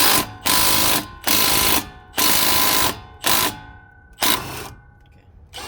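Impact wrench with a 17 mm socket hammering in about six short bursts, each under a second, with a whine in each burst, as it works the bolts loose on the brake caliper bracket.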